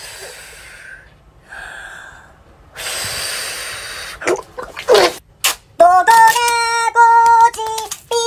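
A man's hard, breathy exhales and gasps after a gulp of drink, the louder one about three seconds in, followed by a couple of quick whooshes and then a short melody of held, stepping high notes that is the loudest part.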